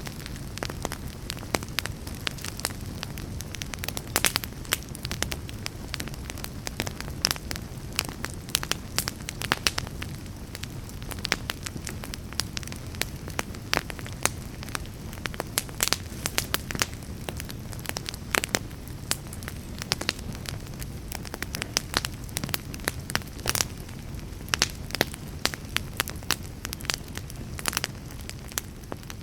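Crackling fire: a steady low rumble with many irregular sharp pops and crackles.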